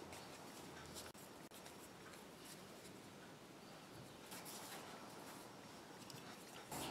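Faint rubbing and rustling of hands pinching off wheat-flour dough and rolling it into balls in dry flour, with a few light taps. The background gets louder just before the end.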